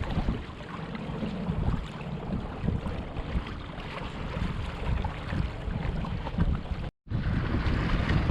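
Wind buffeting the microphone over water splashing and rushing along the hulls of a Hobie Mirage Tandem Island trimaran under sail in a gusty breeze. The sound cuts out for an instant about seven seconds in, and the wind noise comes back louder.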